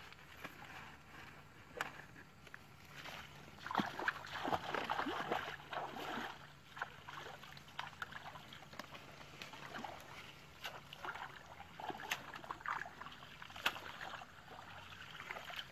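Shallow water splashing and sloshing as people wade and a fishing net is worked by hand, in irregular bursts that are busiest about four to six seconds in, with a few sharp clicks.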